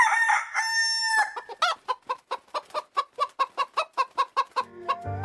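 Rooster crowing, the call ending about a second in, followed by a rapid run of short clucks, about six a second. Music comes in near the end.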